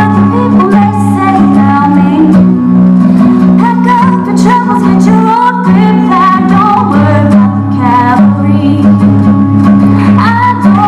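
A young woman singing solo into a microphone, accompanying herself on acoustic guitar; the guitar holds steady chords that change every few seconds beneath her melody.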